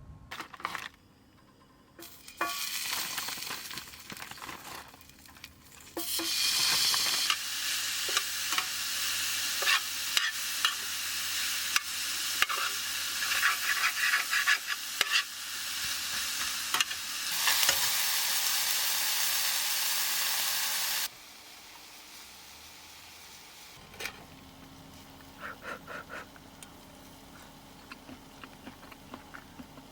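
Food sizzling in a frying pan while being stirred, with many short clicks and scrapes of a utensil against the pan. The sizzling cuts off suddenly about two-thirds of the way through, leaving a quieter background with a few faint clicks.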